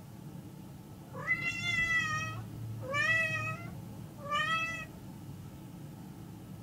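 Domestic cat meowing three times: two long, drawn-out meows and a shorter third one, each rising in pitch at the start. A steady low hum runs underneath.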